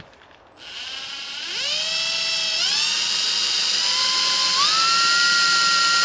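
Cordless drill boring into a van's sheet-metal side panel. It makes a whine that starts about half a second in and rises in pitch in steps as the motor speeds up, holding high towards the end.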